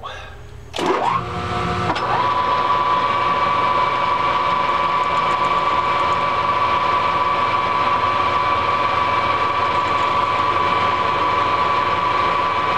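Metal lathe starting up about a second in and coming up to speed over the next second, then running steadily with a high whine, its three-jaw chuck turning a long steel shaft.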